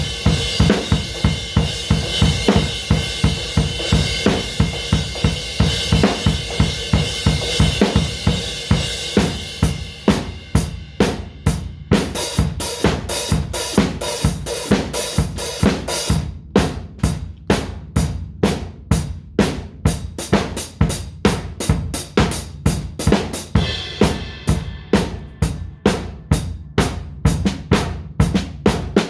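Drum kit played in a steady groove, about three strokes a second. A wash of cymbals rides over it for the first third, then drops away, leaving crisp separate drum and hi-hat strikes.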